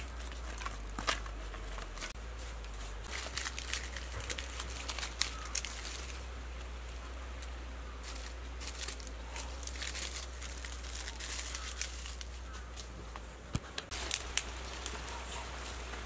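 Dry sticks and twigs being handled and stacked on leaf-strewn ground, with scattered snaps, clicks and knocks of wood on wood.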